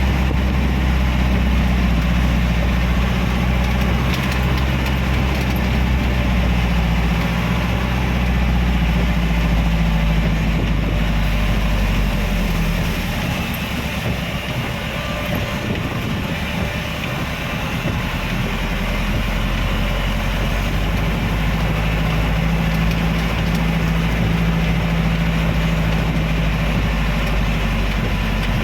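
Car engine running and tyres hissing on a rain-soaked road, heard inside the car, with heavy rain adding a steady hiss. The low engine drone eases for a few seconds about halfway through, then picks up again.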